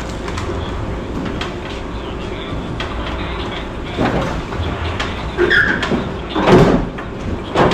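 Shop noise from work on a car: a steady low background hum with scattered metal clicks and knocks, and several louder scraping clatters in the second half, the loudest about six and a half seconds in.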